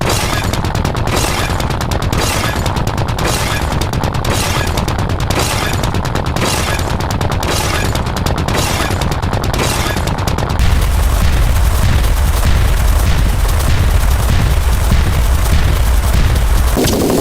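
A dense pile of overlapping sound effects, mostly rapid gunfire-like bangs and booms. A heavier low rumble joins about ten seconds in and makes it louder.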